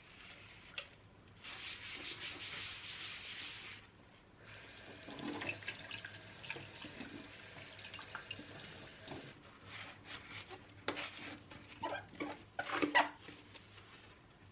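Kitchen tap running water into a sink in spells, with dishes and utensils clinking and clattering; the loudest clatter is a cluster of knocks about three quarters of the way through.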